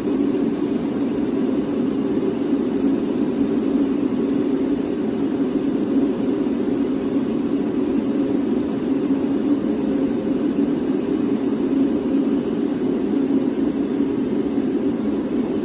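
Octominer X12 Ultra mining case fans running, a steady whoosh of air at constant speed.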